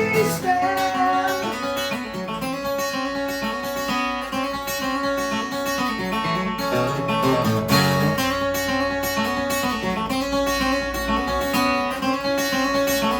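Instrumental music led by strummed acoustic guitar, with no singing.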